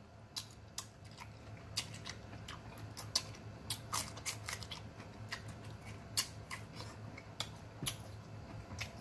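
Close-miked mouth sounds of a person eating: irregular wet clicks and lip smacks, a few a second, as he chews cantaloupe and pickled jalapeño slices. A faint low hum sits underneath.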